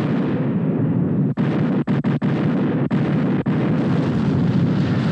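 Film battle sound of cannon fire and a ship exploding: a loud, continuous deep rumble that starts suddenly, broken by several split-second dropouts.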